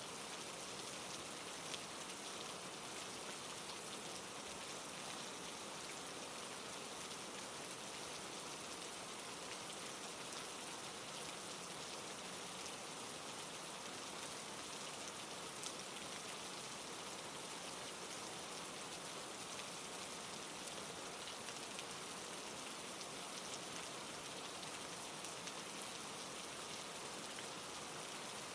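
Steady rain falling, an even hiss with a few faint sharper drop ticks scattered through it.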